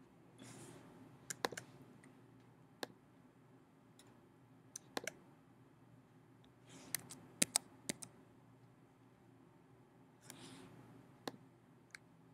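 Faint computer-mouse clicks: about a dozen sharp clicks, irregularly spaced and some in quick pairs or threes. Three soft, brief rustles come between them.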